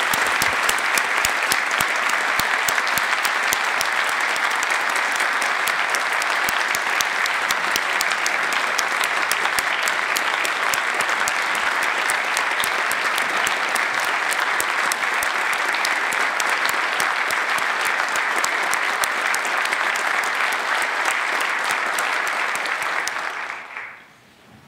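A large audience applauding: dense, steady clapping that carries on at an even level and then dies away about a second before the end.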